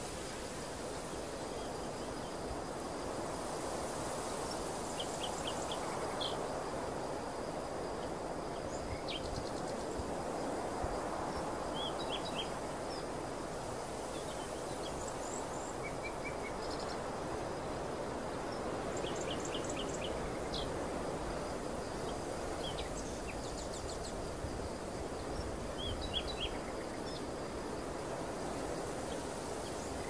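Wind rustling steadily through a green barley field, with bird chirps coming in short quick runs of three or four and a faint steady high tone behind them.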